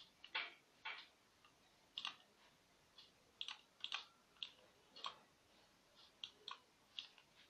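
Computer mouse buttons clicking: a dozen or so short, sharp clicks at uneven spacing, some in quick pairs.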